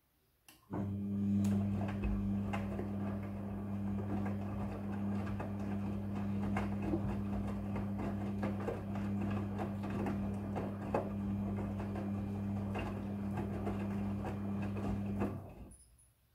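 Midea front-loading washing machine running a motor or pump: a steady electric hum with light rattling and clicks. It starts abruptly about a second in and cuts off shortly before the end.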